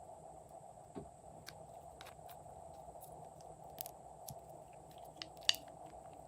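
Glossy slime being squished and pressed by hand, giving scattered small sticky clicks and pops, the loudest about five and a half seconds in, over a steady low hum.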